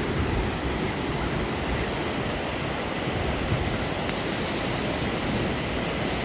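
Ocean surf washing onto the beach, a steady rushing noise.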